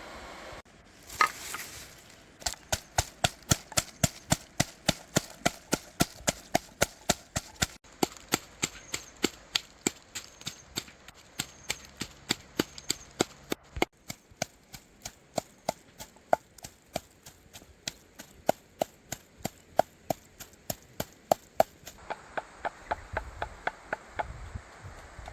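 A blade chopping steadily on wood, about two to three sharp strokes a second, with one harder stroke about halfway through and lighter strokes near the end.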